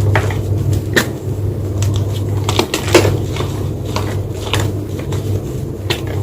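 White gym chalk crunching and crumbling in a series of sharp, irregular crunches about a second apart, the loudest about three seconds in, over a steady low hum.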